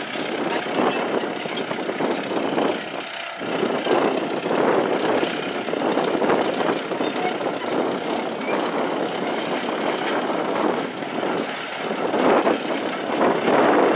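Caterpillar D7 crawler dozer's diesel engine and tracks working under load while pulling a plow through a field: a continuous, rough mechanical noise that swells and dips and grows louder near the end.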